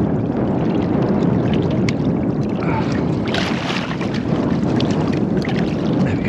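Conger eel splashing and thrashing at the water's surface beside the boat while it is being unhooked, with the busiest splashing a little past the middle, over a steady low rumble of wind and water.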